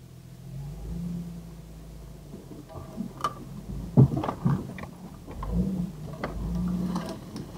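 Jeep TJ engine running at low revs as it crawls over rough off-road ground, swelling in revs a couple of times. A string of sharp knocks and cracks comes about midway, the loudest about four seconds in.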